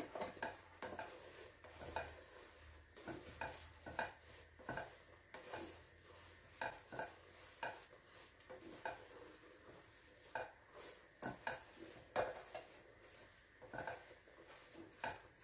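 Wooden spoon stirring vermicelli in foaming butter in a stainless steel pot, with irregular faint knocks and scrapes of the spoon against the pot about once or twice a second and a light sizzle as the vermicelli toasts golden.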